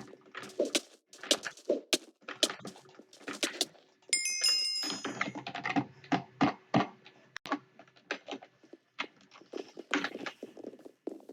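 Computer keyboard keys being pressed one at a time, irregular clicks a few times a second. About four seconds in there is a short burst of high electronic tones.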